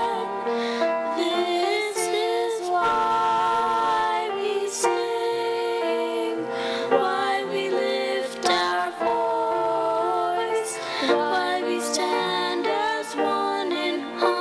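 A woman and a girl singing a duet with vibrato, sustained notes changing every second or so.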